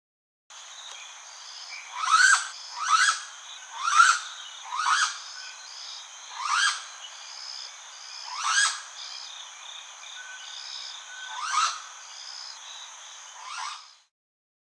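An animal gives eight short, sharp calls, each sweeping quickly upward in pitch, at uneven gaps of one to three seconds. Under them runs a steady high insect drone and faint chirping.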